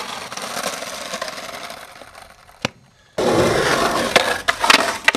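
Skateboard wheels rolling and scraping on rough concrete, fading out after about two seconds. A single click follows, then about three seconds in a louder roll on concrete starts abruptly, with several sharp knocks of the board near the end.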